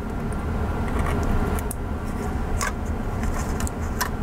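Small plastic model parts and metal tweezers being handled while taped-in pieces are worked loose, giving a few sharp clicks and taps over a steady low hum.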